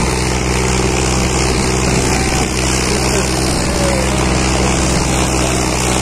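John Deere 5039 tractor's three-cylinder diesel engine running hard and steady under heavy load, dragging a 19-disc harrow.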